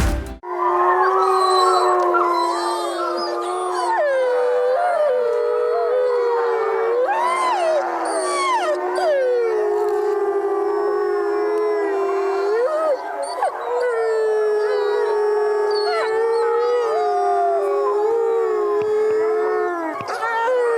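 A chorus of wolves howling: several long howls overlap, each rising and falling in pitch, with one steady lower howl held underneath.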